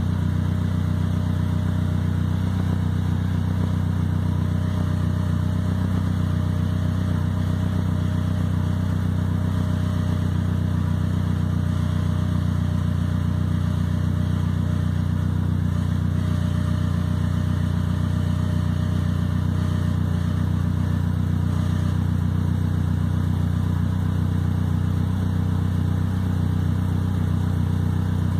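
Car engine idling steadily, an even hum that holds the same speed throughout.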